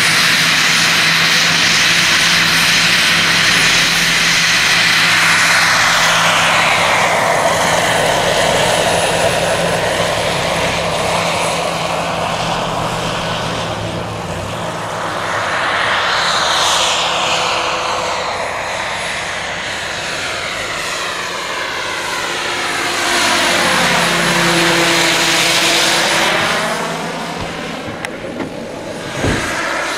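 Large radio-controlled scale model of an AS350 Écureuil helicopter running on the ground, lifting off and flying: a steady whine of its drive and rotor blades that swells and fades as the model moves about and passes by.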